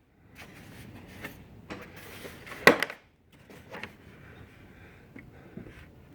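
Clicks and knocks of a blow-molded plastic socket set case and its sockets being handled, with one sharp knock about two and a half seconds in.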